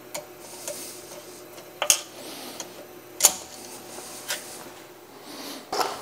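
Sharp metal-on-metal clicks and clinks from removing the steel hard jaws and screws of a milling vise with a hex key: a few separate clicks, the loudest about two and three seconds in, over a faint steady hum.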